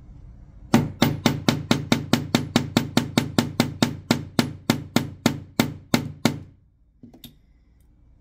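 Small hammer tapping a metal pin into a Glock pistol's trigger: about twenty quick, even blows at about four a second, each with a short metallic ring, followed by one lighter knock.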